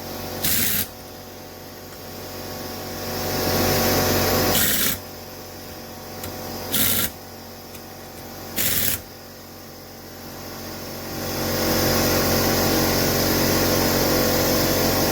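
Cordless impact gun with a 13 mm socket running down the cylinder head nuts: the motor whines in runs, with a few short sharp bursts between them and a longer run of about four seconds near the end.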